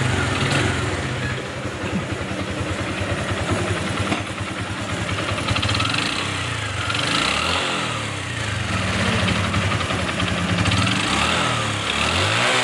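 Honda Supra X 125 FI's single-cylinder four-stroke engine running with a rough, noisy sound from the middle of the engine, its revs rising and falling a few times in the second half. The mechanic suspects the roughness comes from a worn connecting rod.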